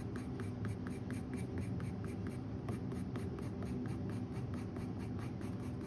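Colored pencil scratching on toned tan mixed-media paper in quick, even back-and-forth strokes, about five or six a second, laying in fur.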